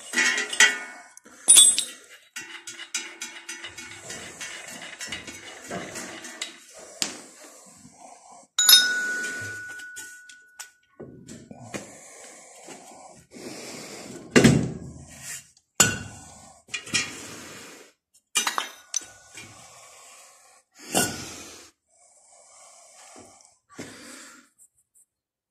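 Metal hand tools and engine parts clinking and knocking during disassembly of an Antor engine, with a run of quick small clicks early on and a few sharper strikes, one ringing briefly.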